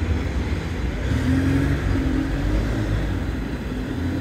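Road vehicle engine running with a steady low rumble. Its pitch rises and falls a little about a second in.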